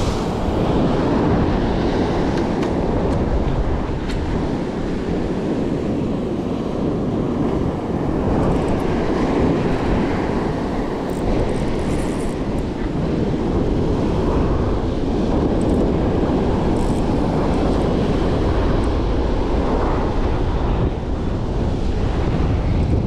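Wind blowing across the microphone over steady breaking surf.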